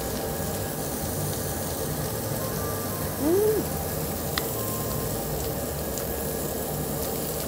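Pork sizzling on a tabletop barbecue grill, a steady hiss. About three seconds in comes one short rising-and-falling "mmm" of someone relishing a mouthful, and a light click of utensils follows about a second later.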